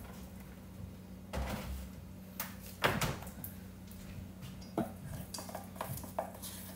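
Spoon clinking against a bowl while stirring a thick sugar-and-milk glaze: a few scattered knocks, the loudest about three seconds in, then quick regular clinks, about three a second, from about five seconds in.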